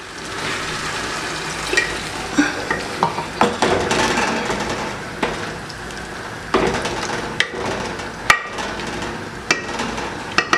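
Liver stew sizzling in an aluminium pot just after a little water is poured in, while a wooden spatula stirs and scrapes through it. The spatula knocks against the pot sharply every second or so.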